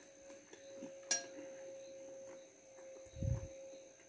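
A metal fork clinks sharply once against a ceramic bowl about a second in, with a soft low mouth sound of eating a little after three seconds. A faint steady tone hums underneath.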